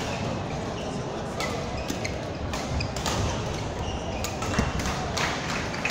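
Badminton rally in a large sports hall: a string of sharp, irregularly spaced hits of rackets on the shuttlecock and thuds of footwork, over the steady din of play on neighbouring courts.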